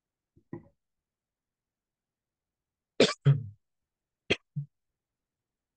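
A man coughing: a faint cough about half a second in, two hard coughs about three seconds in, and two lighter ones a second later.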